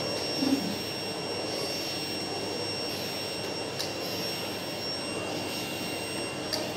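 Canister vacuum cleaner running steadily with a high motor whine as its floor nozzle is pushed over a rug; a brief bump about half a second in.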